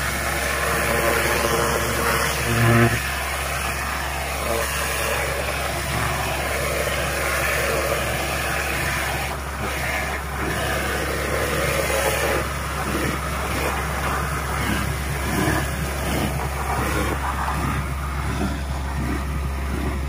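Truck-mounted vacuum excavator running steadily while a pressure-washer wand and vacuum hose dig out a post hole: a continuous rush of suction air over the engine's hum, with a brief low surge about three seconds in.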